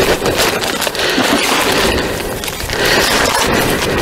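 Gritty rustling and scraping of dry fishing groundbait being poured and rubbed through a sieve, with crackling from the bait bag.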